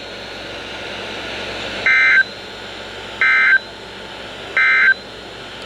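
Emergency Alert System SAME end-of-message data bursts from a NOAA Weather Radio broadcast: three short, identical electronic buzzes about a second and a half apart over steady radio hiss, marking the end of the warning.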